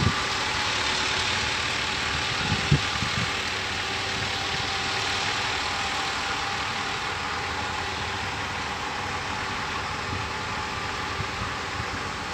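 Diesel engine of a Kato crawler excavator idling steadily, with one brief knock about three seconds in.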